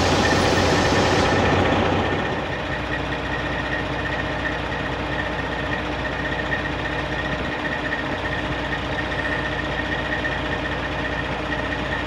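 Fire truck's Detroit 60 Series inline-six diesel engine idling steadily, with a steady high whine over the low engine hum. About two seconds in the sound drops and a hiss fades.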